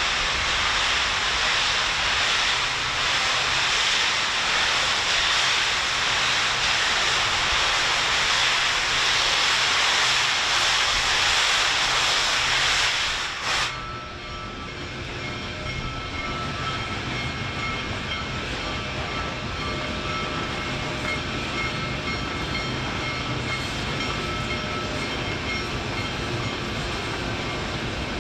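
Union Pacific Big Boy #4014, a 4-8-8-4 articulated steam locomotive, and its train crossing a steel truss bridge. For the first half there is a loud, steady hiss. After an abrupt change about halfway through, it is quieter: a low rumble with several thin, steady high tones.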